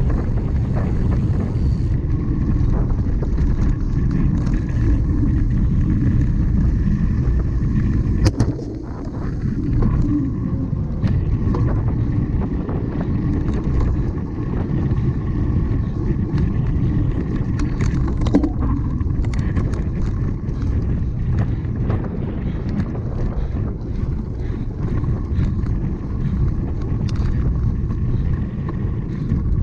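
Wind buffeting the microphone over the rumble and rattle of a cyclocross bike ridden over rough ground, with a sharp knock about 8 seconds in and another about 18 seconds in.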